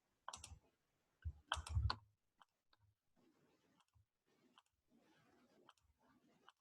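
A few sharp clicks and taps in the first two seconds, then a handful of faint, scattered ticks.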